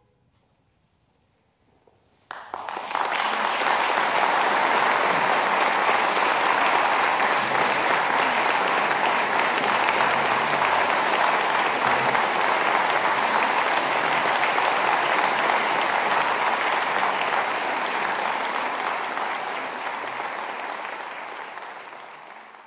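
Concert-hall audience applauding: after a short silence the applause breaks out suddenly about two seconds in, holds steady, and fades away near the end.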